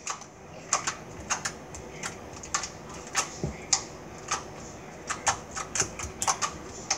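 Slime being poked and pressed with fingers, giving short sharp clicks and pops, roughly two a second at uneven intervals.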